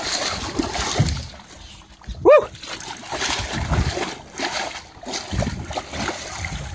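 Water splashing and churning as a hooked Atlantic sailfish thrashes at the side of the boat. About two seconds in there is a short, loud yelp that rises and falls in pitch.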